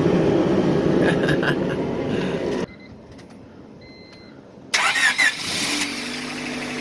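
Car engine starting about five seconds in, with a brief whine as it catches, then settling into a steady idle on an exhaust pipe just patched with stacked pop cans and U-bolt clamps. Before that, a loud rushing noise cuts off suddenly.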